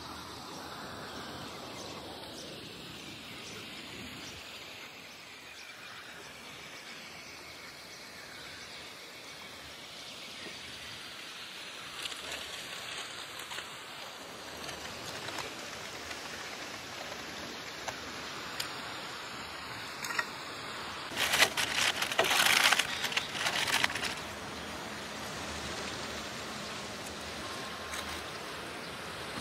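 Steady outdoor background hiss. About three quarters of the way through, a few seconds of loud rustling and clicking handling noise, the loudest part.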